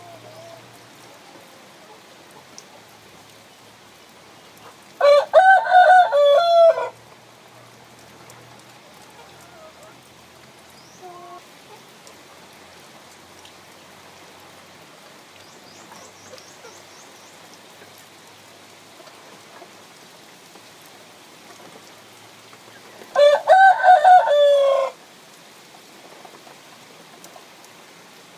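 Rooster crowing twice, each crow about two seconds long and the two some eighteen seconds apart, over a steady background hiss.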